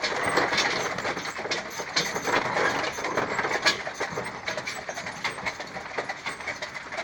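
Two carriage horses, a Haflinger and an Appaloosa, clip-clopping at a walk, with the rattle and clatter of the horse-drawn carriage rolling along behind them: a stream of uneven knocks over a steady rolling noise.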